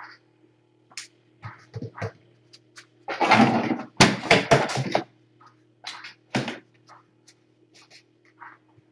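Scattered scrapes and light knocks, with a dense burst of rustling and clattering about three to five seconds in and a single sharp knock soon after, over a faint steady low hum.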